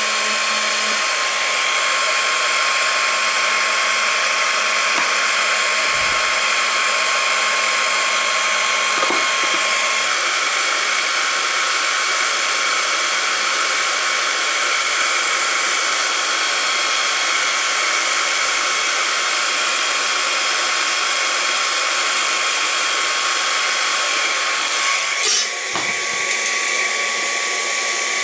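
Hot-air plastic welding gun blowing steadily with a fixed whine, as used for melting polypropylene flat welding rods into a cracked air filter housing. The sound wavers briefly near the end.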